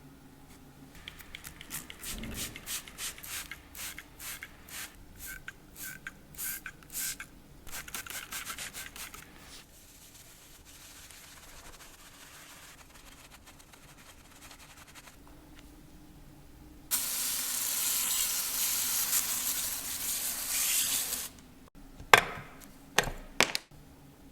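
A run of quick hand rubbing strokes on a surface. Then about four seconds of steady aerosol spray hiss, followed by a few sharp clicks near the end.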